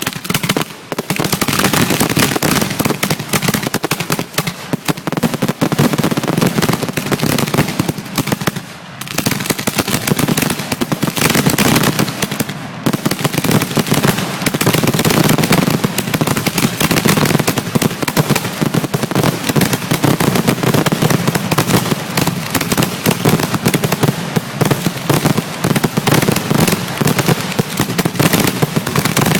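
Ground-level fireworks going off in a dense, continuous barrage of rapid pops and crackling, with two brief lulls about nine and thirteen seconds in.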